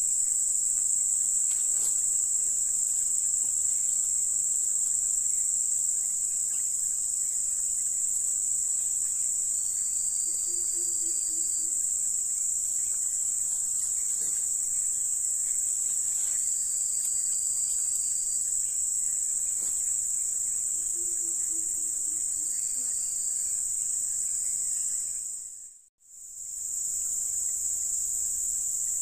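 Steady, high-pitched drone of insects in tropical undergrowth, unbroken except for a brief dropout near the end.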